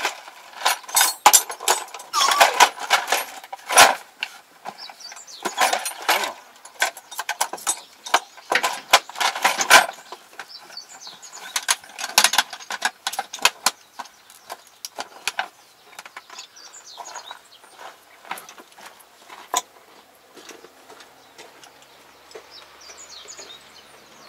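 Metal hand tools clinking and clattering as they are picked through in a toolbox. The clinks come thick and irregular for about the first ten seconds, then grow sparser.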